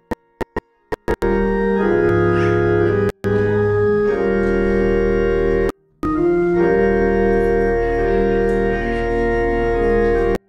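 Church organ playing sustained chords. For about the first second it comes through only in brief choppy fragments, and it cuts out abruptly twice in the middle.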